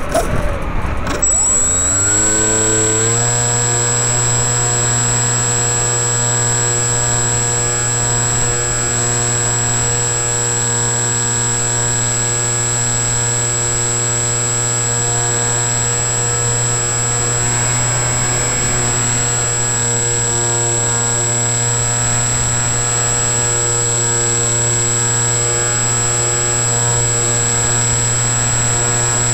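Brushless electric motor and propeller of an FPV model plane, heard through the onboard camera. It winds up in pitch over the first few seconds, then holds a steady, even drone, with a thin, constant high whine above it.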